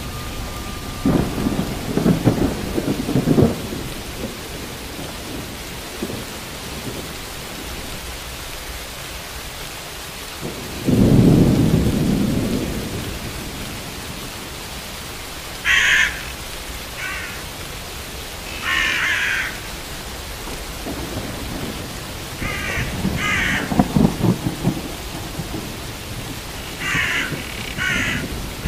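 Steady rain with rolling thunder: a crackling rumble about a second in, the loudest long rumble at about eleven seconds, and another at about twenty-three seconds. In the second half a crow caws several times in short groups.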